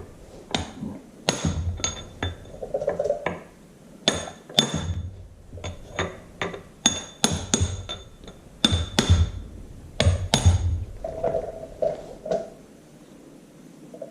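Hammer tapping a sheet-metal seal into place on a Farmall Super MTA front axle: about fifteen light, irregular metallic taps with a short ring, some in quick pairs, stopping near the end as the seal seats fully.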